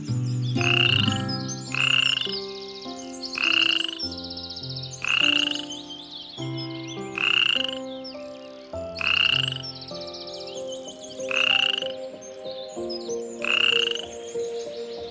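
An animal call repeated about eight times, one every one and a half to two seconds, over background music with a slow melody.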